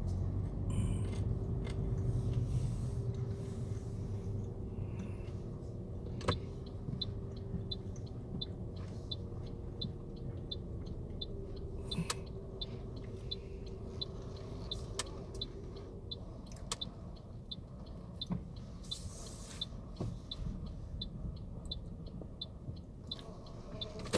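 Car interior: engine and road rumble, with a turn-signal indicator ticking evenly about twice a second from several seconds in, pausing briefly, then ticking again near the end.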